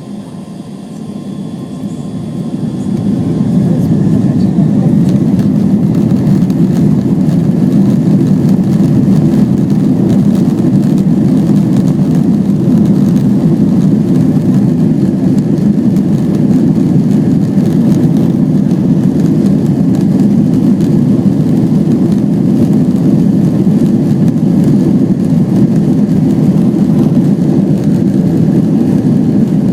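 Jet airliner's engines at take-off power during the take-off run. The noise builds over the first few seconds, then holds as a loud, steady low rumble.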